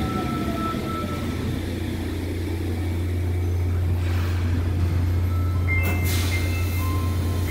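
Sendai Subway Namboku Line train pulling into the platform and stopping: the motor whine falls in pitch over the first second or so over a steady low hum. About six seconds in there is a short burst of hiss, followed by high steady beeps as the train stands at the platform screen doors.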